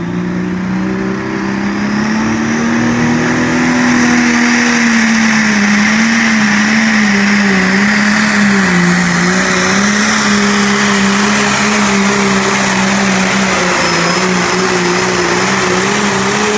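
John Deere 4560 pulling tractor's turbocharged diesel engine running flat out under load as it drags a weight-transfer sled, pouring black smoke. Its loud, steady note climbs in pitch over the first few seconds, then wavers up and down for the rest of the pull.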